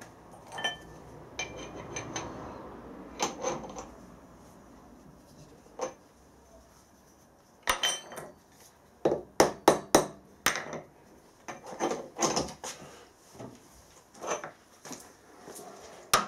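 Workpiece being set in a milling-machine vice: clinks and knocks of metal being handled, then, about halfway through, a quick run of sharp taps from a soft-faced hammer seating the work down in the vice, with a few more single knocks after.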